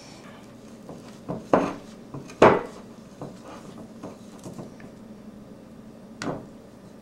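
Spatula stirring thick brownie batter in a ceramic mixing bowl: soft scraping with a few sharp knocks of spatula against bowl, the loudest about one and a half, two and a half and six seconds in.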